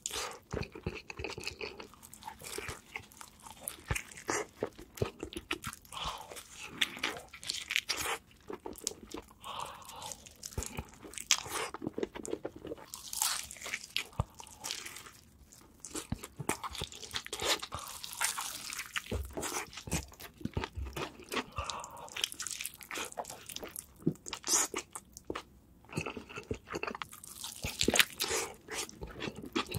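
A person biting and chewing crispy fried chicken, close-miked: a long run of sharp crunches of the fried coating, some loud, with quieter chewing between bites.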